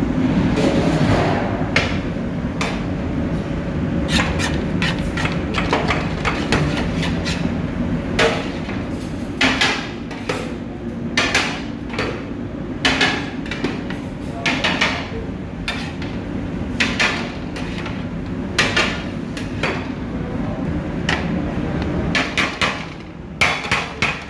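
Repeated sharp metallic knocks, roughly one a second and irregular, of a metal cooking utensil striking a large biryani pot, over a steady low rumble.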